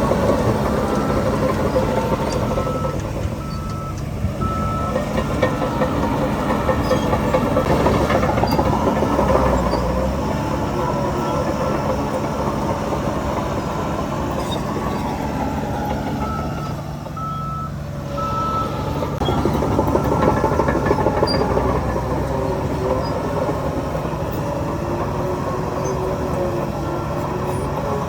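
Heavy diesel machinery running with engine pitch rising and falling, while a reversing alarm sounds two runs of short, evenly spaced beeps: one in the first few seconds and another about halfway through.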